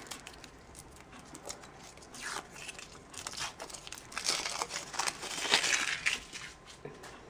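A surprise-egg wrapper being crinkled and torn open by hand: irregular short rustles and crackles, busiest in the second half.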